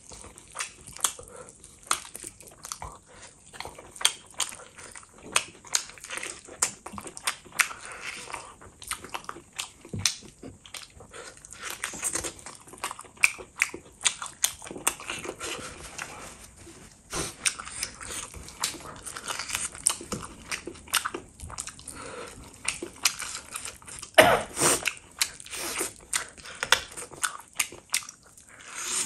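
Close-miked chewing and wet mouth-smacking of mouthfuls of mutton and rice, with the squelch of fingers handling gravy-soaked food. It comes as dense, irregular clicks, with a louder burst late on.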